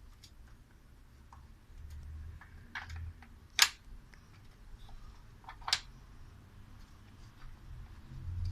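A few light clicks and taps of the fan motor's housing parts being handled and gently eased apart, with two sharper clicks a few seconds apart.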